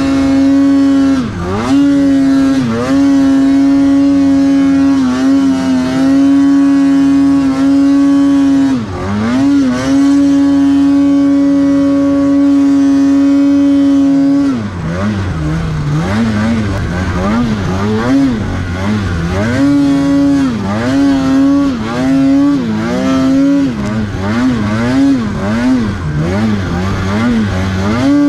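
2022 Polaris Matryx Pro RMK 850 snowmobile's two-stroke twin with SLP Stage 2 twin pipes, held at high revs under steady throttle with a few brief dips for the first half. About halfway through it switches to quick repeated throttle blips, the revs rising and falling about once a second as the sled is worked through the trees in deep powder.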